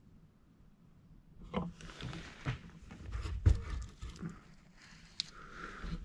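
Handling and movement in a wooden roof space: irregular knocks and thumps against boards with rustling between them. It starts after a quiet second or so, has its loudest thump about halfway and a sharp click near the end.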